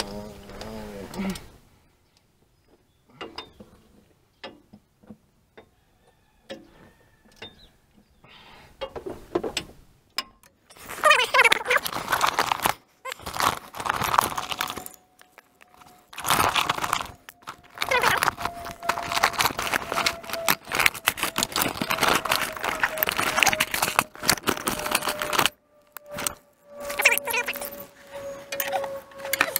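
Man working a socket and ratchet at a truck's oil drain plug while lying on gravel: scattered small metal clicks at first, then, about a third of the way in, a long stretch of loud scraping and shuffling on the gravel with grunting.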